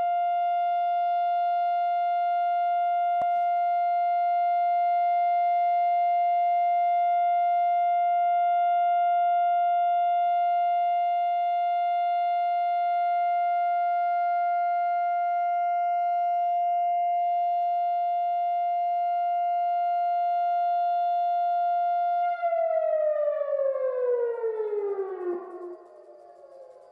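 Civil-defence siren sounding the Israeli Memorial Day remembrance siren: one steady, unwavering tone, which winds down in falling pitch and fades over the last few seconds.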